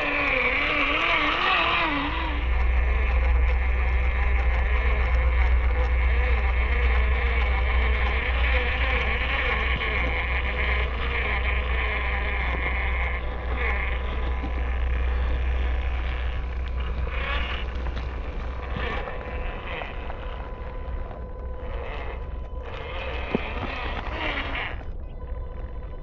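Electric motor and gearbox of a WPL C44KM RC Toyota FJ45 crawler whining steadily as it crawls over dirt and gravel. A low rumble underlies the first half.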